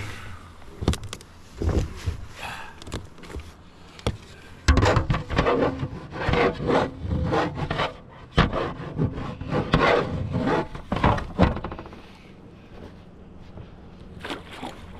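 Irregular knocks and scraping from a plastic fish-measuring board and a landing net being handled against a kayak's hull, thickest from about five to eleven seconds in and quieter near the end.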